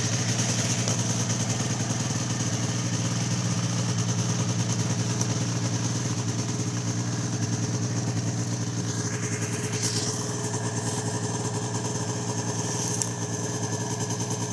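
Idling 1999 Ski-Doo MXZ 440 snowmobile: its two-stroke engine runs at a steady, unchanging idle.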